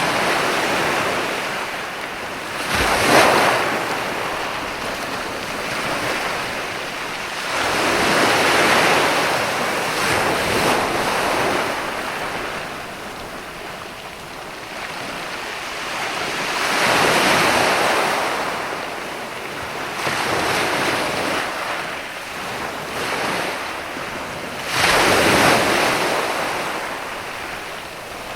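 Sea waves breaking and washing onto a sandy beach, swelling and fading in repeated surges several seconds apart, the loudest about three seconds in and again near the end.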